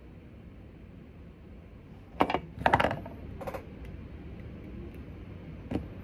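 A few sharp clicks and knocks over a low steady hum: two loud ones about two and three seconds in, a fainter one just after, and another near the end.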